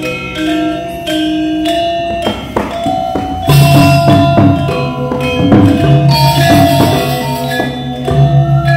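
Balinese gamelan ensemble playing: bronze metallophones struck with mallets in fast ringing patterns over a steady low hum. The music gets louder and busier about three and a half seconds in.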